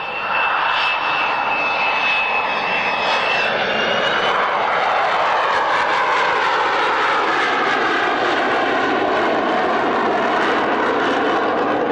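Four Rolls-Royce Spey turbofans of a Nimrod MR2 making a low flypast with gear and flaps down: a loud, steady jet noise with a thin high whine over it for the first few seconds, then the noise deepening in pitch as the aircraft goes by.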